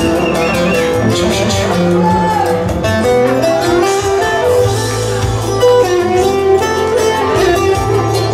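Loud dance music playing without a break, a bending melody over a steady low bass line.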